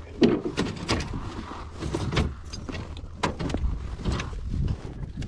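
Scattered knocks, clicks and rustles of hands working a fishing hook free from a large sturgeon lying on the floor of an aluminum boat, over a low steady rumble.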